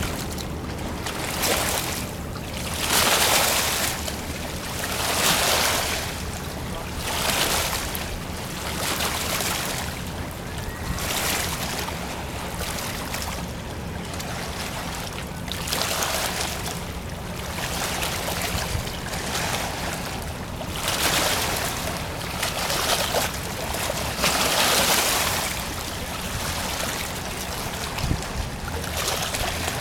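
Water rushing and splashing along the hull of the Trillium, a steam sidewheel paddle ferry under way. The water comes in loud surges about every two seconds over a steady low hum of the ship's machinery.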